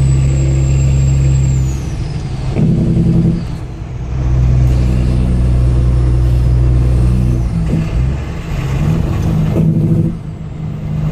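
Kenworth W900L truck's diesel engine running loud and steady, its note dropping off and picking back up several times.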